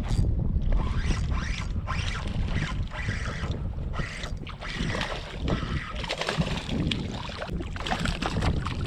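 Wind buffeting the microphone in a steady low rumble, over water slapping around a small boat. Near the end, water splashes at the surface as a hooked fish is brought alongside the boat.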